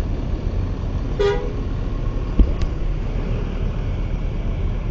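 A bus horn gives one short toot about a second in, over a steady low rumble of engine and road traffic. A dull thump follows about a second later.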